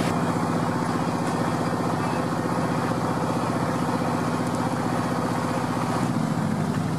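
Off-road vehicle engine running steadily with an even low throb, its pitch shifting slightly near the end.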